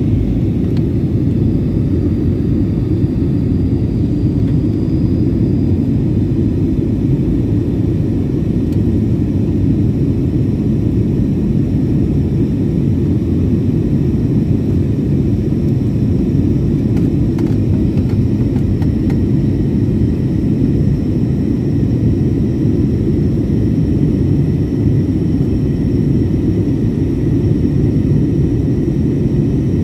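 Jet airliner cabin noise during the climb after takeoff: a steady deep rumble of the engines and airflow, with a faint high whine held steady above it.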